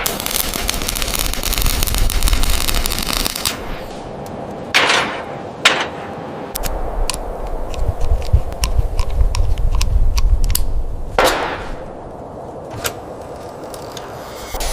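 Mechanical assembly sound effects: a dense crackle, then sharp metallic clicks and knocks, with a run of rapid clicking over a low rumble and a heavier hit near the end.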